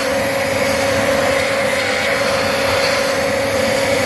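Vacuum cleaner running with an even, steady whine, its nozzle cleaning loose dirt out of a car's cabin air filter housing.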